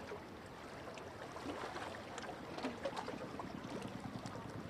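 Small waves lapping and splashing against shoreline rocks, an even wash of water noise with scattered small clicks.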